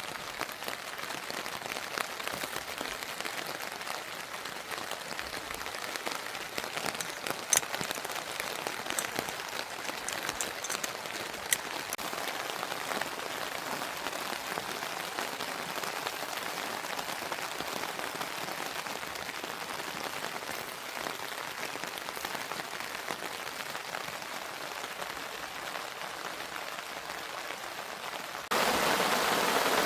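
Rain falling steadily, with a few sharp drop ticks, turning abruptly louder near the end.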